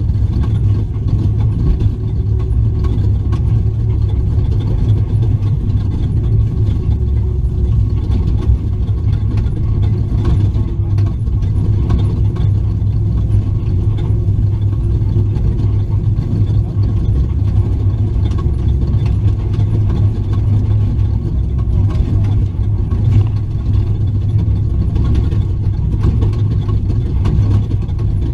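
Engine of an H&M-built Ford Raptor off-road race truck running steadily: a loud, low rumble that holds one pitch.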